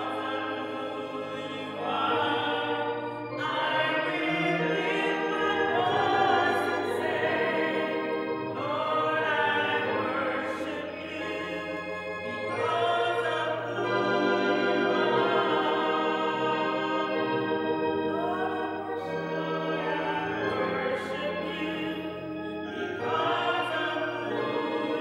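Choir singing a sacred song in long held notes over a steady low accompaniment.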